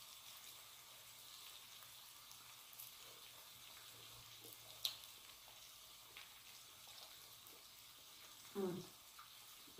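Faint steady sizzle of an electric griddle still switched on under the food, with a sharp click about five seconds in and a short voiced sound near the end.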